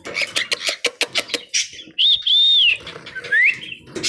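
Cockatiel calling: a quick run of clicks and chirps, then about two seconds in a clear whistled call that arches high and is held for nearly a second, followed by a short rising whistle.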